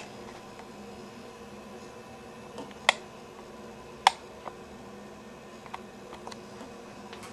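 Water drops falling from a bathtub faucet and landing in the tub: a few scattered sharp plinks, the two loudest about three and four seconds in, over a steady low hum.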